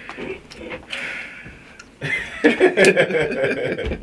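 Indistinct men's voices, low at first and louder about halfway through, with a few light clicks.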